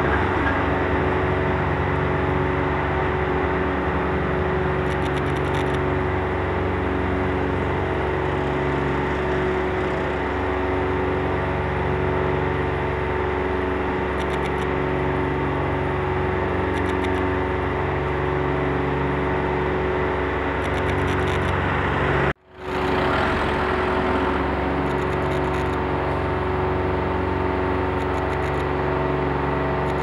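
An engine running steadily at constant speed. It cuts out sharply about two-thirds of the way through and fades back in within half a second.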